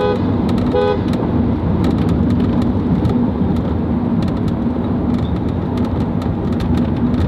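Car driving through a road tunnel, heard from inside the cabin: a steady rumble of engine and tyre noise with a constant low hum. Two short tones sound in the first second.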